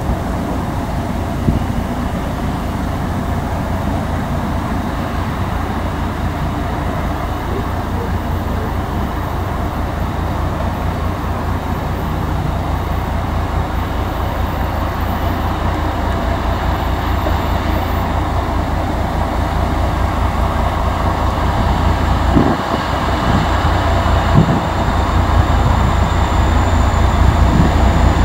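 ChME3 diesel shunting locomotive's six-cylinder diesel engine running under load as it hauls a train, a deep steady throb with wheel-on-rail noise, growing louder as it approaches. Two brief knocks come about three-quarters of the way through.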